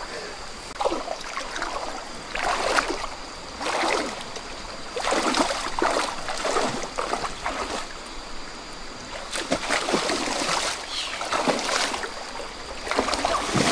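Muddy stream water sloshing and splashing in irregular bursts as a person wades through it, groping along the bottom by hand.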